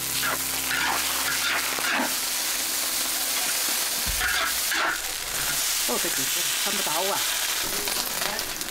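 Shredded cabbage sizzling in a hot wok, with a metal spatula scraping and tossing it against the wok.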